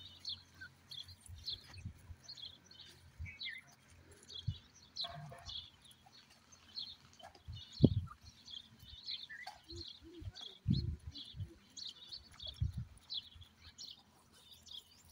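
Birds chirping: many short, high chirps keep repeating. A few low thumps come in between, the loudest about eight seconds in.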